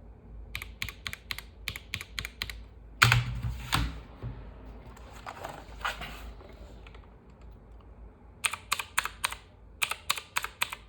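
Mechanical keyboard spacebars pressed over and over, one keyboard and then the other, for a sound comparison between an Akko 5075B Plus V2 and a HyperX Mars. The keystrokes come about two to three a second, broken about 3 s in by a loud thump and a few seconds of handling noise before the second run of presses starts near 8.5 s.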